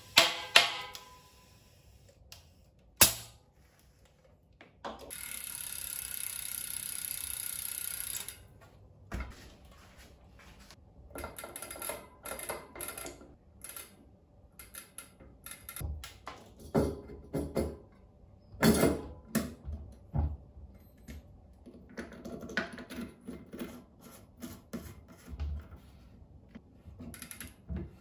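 Bicycle wheel work on a wooden workbench: a sharp click, then a steady hiss of compressed air for about three seconds, followed by a long string of light clicks, taps and knocks as the hub parts and the cassette are handled.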